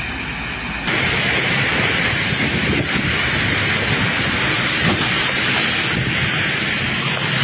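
Steady hiss of rain, starting abruptly about a second in, with a faint low hum underneath.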